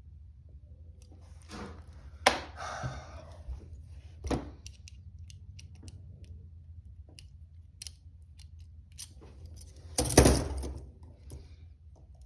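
Metal handcuffs being worked with a key or pick: irregular small clicks and rattles, with short clattering bursts about two and four seconds in and the loudest clatter about ten seconds in.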